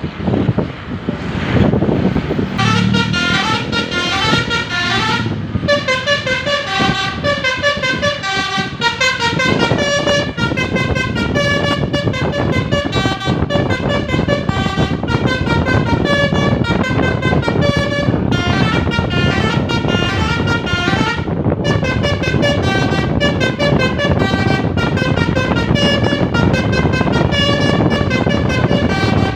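Bus telolet horn, a Basuri multi-tone musical horn, playing a continuous melody of quick tooting notes over road and engine noise. It starts about two and a half seconds in.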